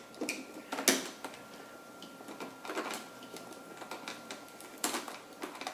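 Scattered light clicks and metallic taps from a screwdriver working the metal retention frame of a Threadripper CPU socket, with a sharper click about a second in and another near the end.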